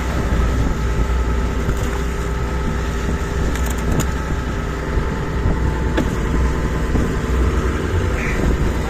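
A boat's engine running steadily with a low hum, with a few sharp knocks on board about a third and two thirds of the way through.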